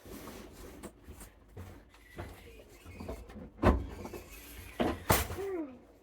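Knocks and clatters of things being handled, with two sharp knocks, the loudest, a little past halfway and near the end.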